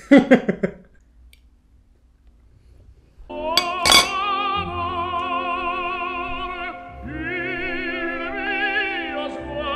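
Operatic voice singing long held notes with wide vibrato, coming in about three seconds in after a short quiet and breaking off briefly near the middle. A single sharp clink sounds just after the singing starts.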